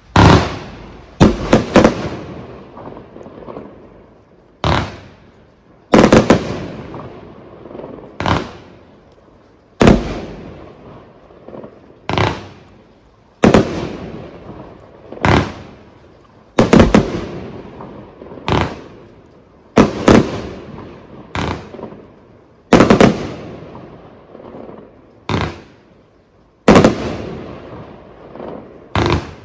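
Proud Mary 134-shot fireworks cake firing: a sharp report about every one to two seconds, sometimes two in quick succession, each trailing off over a second or so.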